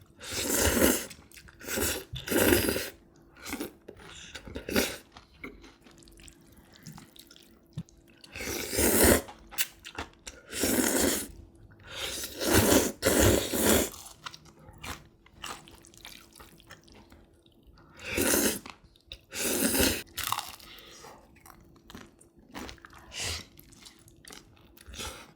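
Mouth-close eating of crispy deep-fried guobaorou pork: loud crunching bites every second or few seconds, with chewing between them.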